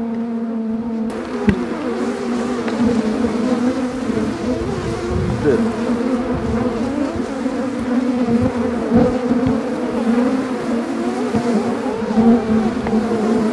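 Honeybees of a strong colony, many of them flying close to the microphone during an open-hive inspection: a dense steady hum, with single bees' pitches rising and falling as they pass. The beekeeper finds these bees rather aggressive.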